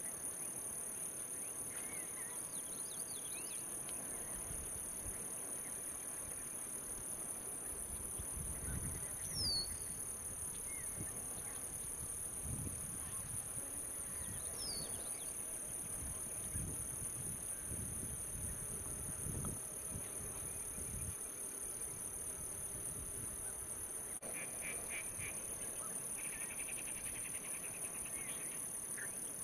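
Steady high-pitched drone of summer insects, with three short falling chirps spread through and a short run of nasal, pulsed calls near the end.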